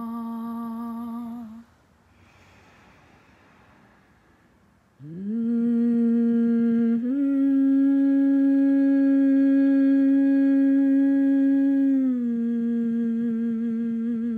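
A woman humming long, held notes: one note stops about a second and a half in, then after a quiet gap a new note slides up into pitch about five seconds in, steps a little higher around seven seconds, and drops back to the first pitch around twelve seconds.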